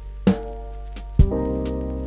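Background music with a drum beat, bass drum and snare hits, and a bass line under sustained pitched instruments.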